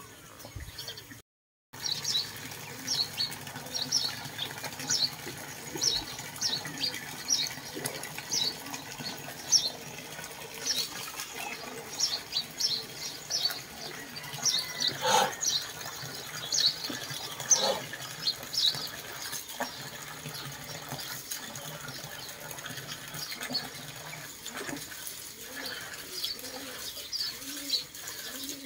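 Water splashing from a pipe into a concrete cattle trough, with small birds chirping over it in quick short notes, about one or two a second, that thin out in the second half.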